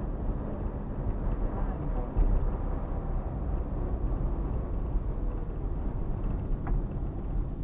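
Fiat Uno Economy driving, heard from inside the cabin: steady low engine and road noise, with a short louder thump about two seconds in.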